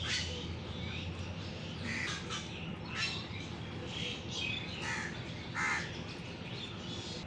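Birds calling: a series of short calls, the loudest about five and a half seconds in.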